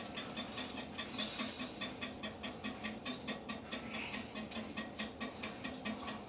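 Raw eggs being whisked by hand in a bowl: a quick, even tapping of the utensil against the bowl, about five or six strokes a second.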